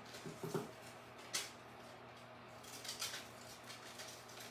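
Scissors snipping through paper: a few faint cuts, the sharpest about a second and a half in.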